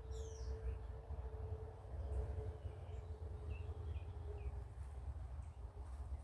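Outdoor ambience: a few short bird chirps, one near the start and a couple about halfway through, over a constant low rumble on the microphone and a faint steady hum.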